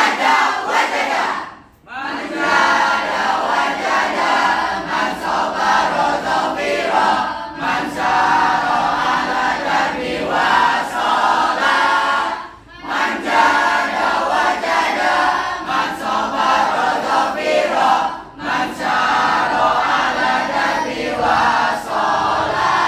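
A group of students, mostly girls' voices, chanting and singing a school cheer (yel-yel) together in unison, in phrases with short breaks between them.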